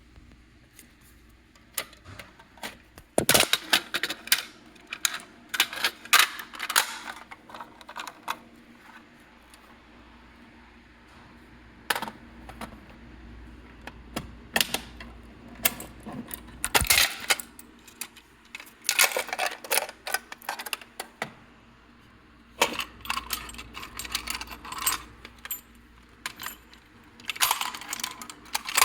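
Irregular clicking and clattering of small hard objects being handled, coming in short clusters with pauses between them.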